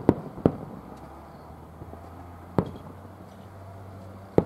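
Aerial firework shells bursting: four sharp bangs, two in quick succession right at the start, one about two and a half seconds in and one near the end.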